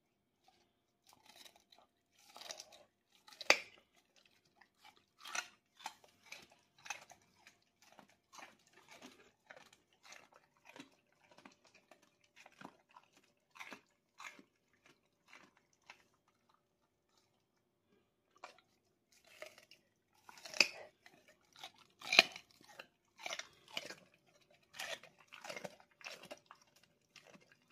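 Husky crunching and chewing a carrot: a run of irregular sharp crunches, stopping for a couple of seconds past the middle, with the loudest bites about three and a half seconds in and twice more near the end.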